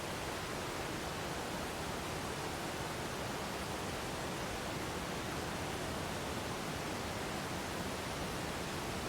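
Waterfall: a steady, even rush of falling water with no change.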